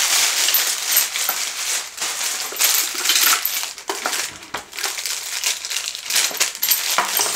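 Clear plastic wrapping bag crinkling and rustling as it is pulled off and handled, a dense crackly rustle with many sharp little crackles.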